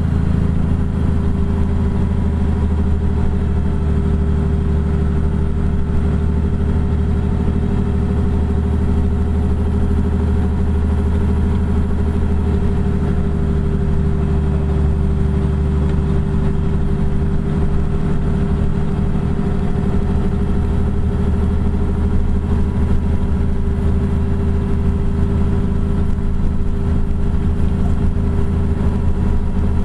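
Diesel engine and road noise of a 2009 Kenworth T800 semi truck cruising at a steady speed, heard from inside the cab as a constant low rumble with a steady engine hum.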